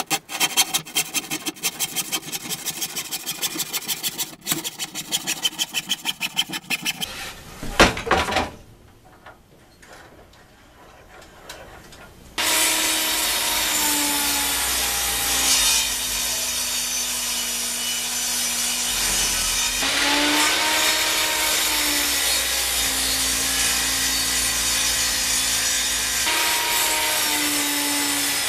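Handsaw cutting an oak board with quick, even strokes, about three a second. After a short pause a benchtop table saw runs, ripping the board into strips, its motor note sagging under load and rising again.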